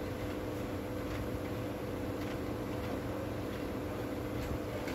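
Steady mechanical hum with hiss, with a few faint light clicks.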